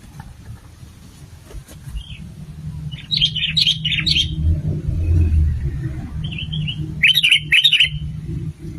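Sooty-headed bulbul (kutilang) calling: a quick run of bright chattering notes about three seconds in, and another about seven seconds in, with a few softer single calls between. A steady low rumble runs underneath.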